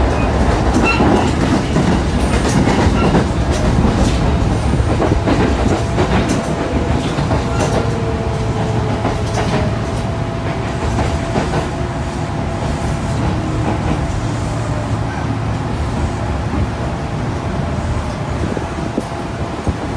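Inside a commuter electric train as it runs and slows: a steady rumble with wheels clacking over rail joints, and a faint whine that falls in pitch in the second half as the train brakes into a station.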